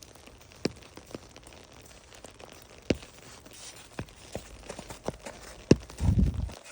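Scattered large raindrops tapping irregularly on an umbrella canopy over a faint hiss of rain. A brief low muffled sound comes about six seconds in.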